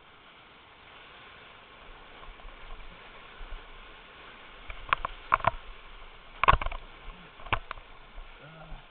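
Whitewater rushing steadily around a kayak, with a run of sharp splashes and knocks from the paddle starting about halfway through, the loudest a little later.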